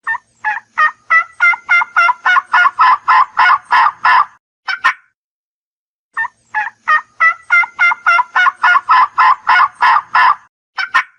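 Turkey gobbling: two long, rapid rattling runs of calls, about five notes a second, with a pause of about two seconds between them and a few single notes after each run.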